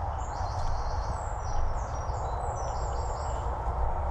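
Several birds chirping in short high phrases, over a steady low rumble of outdoor noise.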